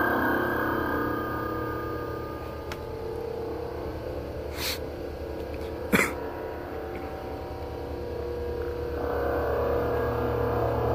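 Low, steady droning hum with several sustained tones layered over it, dipping slightly midway and swelling again near the end. A brief hiss cuts in about five seconds in, followed a second later by a sharp click.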